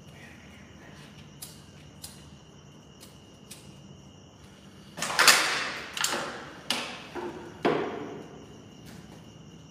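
A fire being lit on the floor, catching with four loud whooshes in quick succession about halfway through, each dying away within a second, after a few faint clicks.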